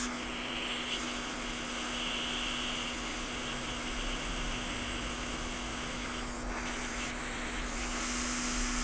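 Hot air rework station blowing, a steady hiss with a low hum under it, while underfill is cleaned off an iPhone 6s board around the NAND memory.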